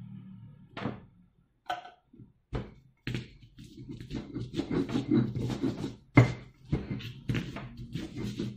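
Stone pestle pounding and grinding garlic, pepper and salt into a spice paste in a stone mortar (cobek and ulekan). A few separate knocks, then rapid, irregular pounding and scraping from about three seconds in.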